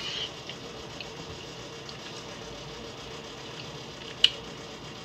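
Quiet room tone with a faint steady hum while a person eats, broken by one sharp click of a fork about four seconds in.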